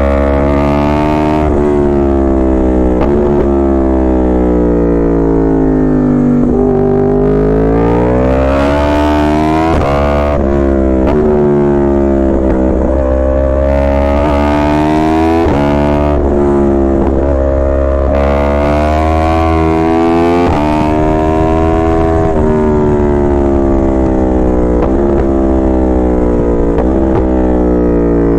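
Yamaha R1 inline-four engine and exhaust under way, the pitch climbing and dropping again and again as the throttle opens and closes through the gears, over a steady low rumble.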